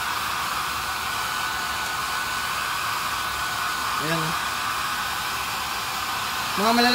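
Handheld hair dryer blowing steadily on a wet puppy: an even rushing hiss of air with a faint steady high whine from its motor.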